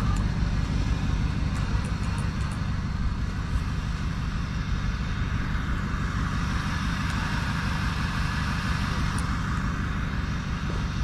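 Steady rumble of a road vehicle running, engine and road noise with no sudden events.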